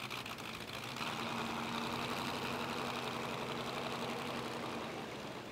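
Boat engine running, with a steady hum that sets in about a second in and fades near the end.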